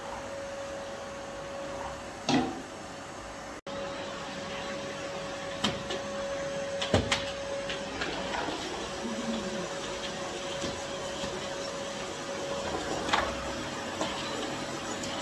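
Canister vacuum cleaner running steadily, a motor hum with a constant whine, as its wand and nozzle are pushed over the floor, with a few knocks from the nozzle and wand. The sound cuts out for an instant once, a few seconds in.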